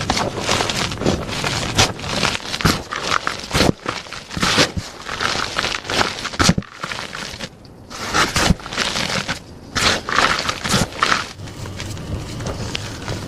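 Blocks of plain gym chalk being crushed, a run of irregular crunches and crackles with a brief lull about halfway. Near the end it turns to a softer, steadier crumbling.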